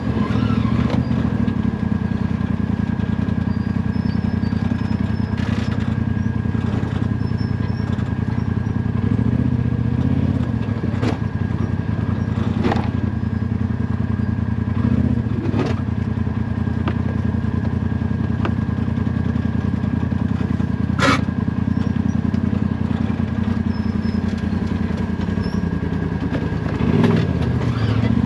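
Side-by-side UTV engine running steadily while driving a trail, with a few sharp knocks and clatter from the vehicle over rough ground.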